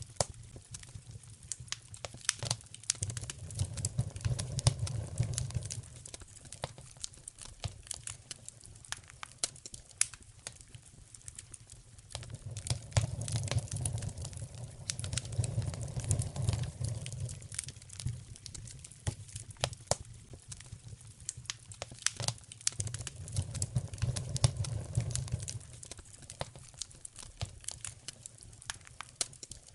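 Wood fire crackling in a fireplace: a steady run of sharp snaps and pops, over a low rumble of the flames that swells up three times.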